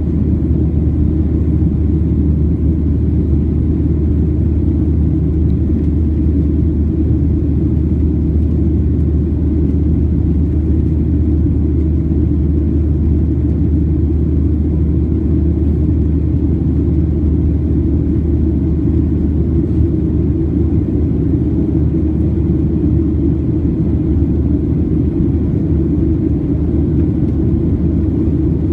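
Boeing 737-700 jet noise: a loud, steady, low rumble of its CFM56 turbofan engines and airflow, with no rise or fall.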